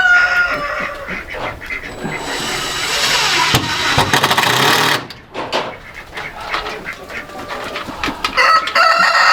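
Chickens calling, with a rooster crowing near the end. About two seconds in, a rushing noise runs for roughly three seconds.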